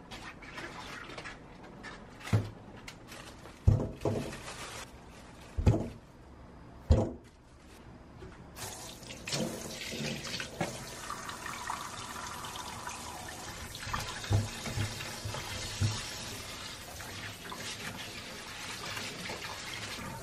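Apples being handled in a plastic colander, knocking four times, then from about eight seconds in a kitchen tap running into a stainless steel sink and bowl, splashing as peaches are rubbed clean under the stream by hand.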